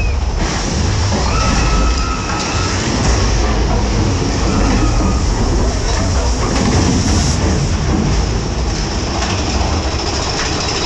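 Big Thunder Mountain Railroad mine-train roller coaster running along its track: a loud, steady low rumble and rattle of the cars.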